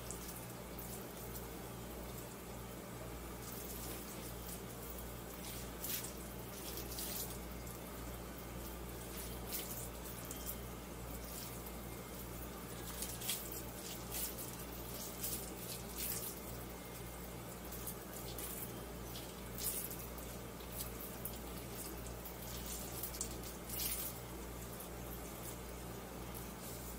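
Hands shaping a sticky, egg-bound rice mixture into balls and setting them into an air fryer pan: soft wet clicks and smacks at irregular intervals, over a steady low hum.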